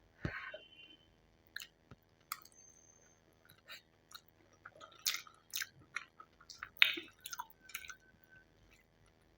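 Close-miked mouth sounds of a person eating Maggi instant noodles: irregular wet chewing and smacking clicks, loudest just after the start and again about five to seven seconds in.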